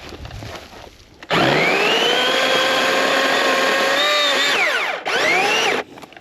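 Master Force 80-volt cordless electric chainsaw starting up about a second in and running with a steady, high motor whine. Near the end its pitch falls as it spins down, then it revs up again briefly and cuts off suddenly.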